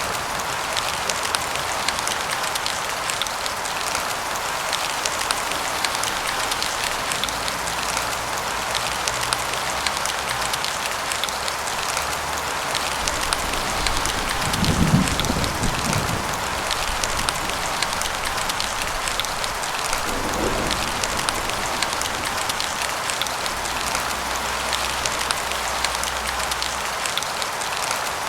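Steady rainfall, with many individual drops ticking through a constant hiss. About halfway through comes a short low rumble of distant thunder, and a fainter one a few seconds after it.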